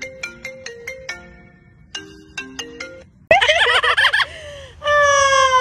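A marimba-style phone ringtone melody plays, breaks off and starts again. About three seconds in, a parrot gives loud, wavering screeches, then a long call that falls in pitch.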